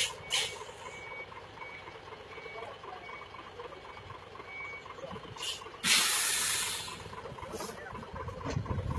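Mitsubishi Fuso crane truck with its reverse alarm beeping about twice a second over the engine running, the beeps stopping about five seconds in. About a second later its air brakes let out a loud hiss, with a few shorter puffs of air around it.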